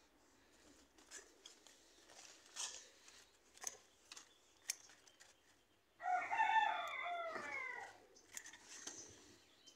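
A rooster crows once, about two seconds long, starting just past the middle; before it, faint rustling and snapping of chayote vine leaves as a hand pushes through them.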